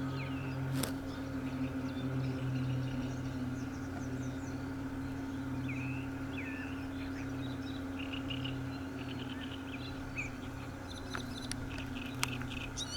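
Scattered bird calls, short chirps and a few gliding notes, over a steady low drone. A single sharp sound comes about a second in, and a few clicks come near the end.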